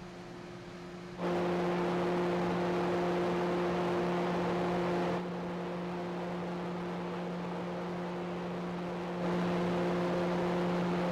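Steady drone of a large car ferry's machinery on the open deck: a constant low hum under a rushing hiss of air. It steps up abruptly about a second in, eases a little around five seconds and rises again near the end.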